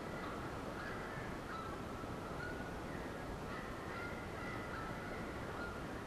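Steady hiss of an old analog videotape soundtrack, with faint thin tones wavering in pitch through it.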